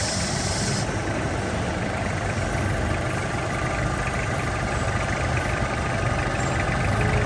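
Vehicle engine idling steadily with the air-conditioning compressor engaged, running for a test of how much pressure the compressor can still pump.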